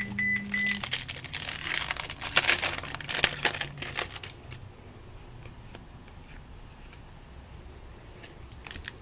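Plastic wrapper of a baseball card pack crinkling and tearing as the pack is opened, in dense crackly bursts for the first few seconds. After that it drops to quieter rustling of the cards being handled, with a few light clicks near the end.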